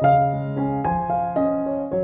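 Background piano music: notes struck about every half second and left to ring.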